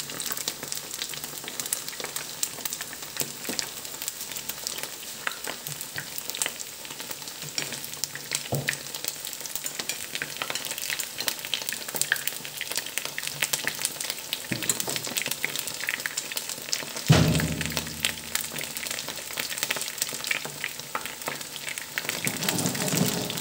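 Breaded onion rings frying in hot oil in a pan: a steady sizzle with many small pops and crackles of spattering oil. A few soft knocks, and a louder knock about seventeen seconds in.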